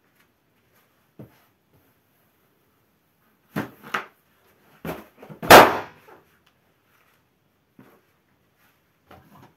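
Gold latex balloon squeezed under a bare foot, giving a few short, sharper sounds as the weight comes on, then bursting with one loud, sudden pop about five and a half seconds in.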